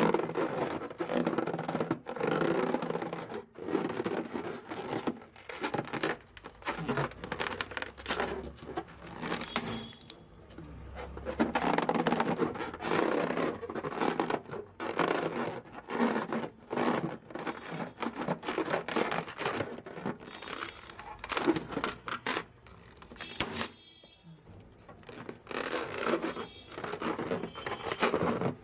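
Rubber balloons being handled and rubbed, giving an irregular series of scraping, crinkling and crackling noises with many sharp little clicks.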